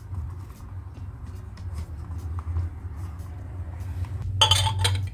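A steady low hum, with a single short clink that rings briefly about four and a half seconds in.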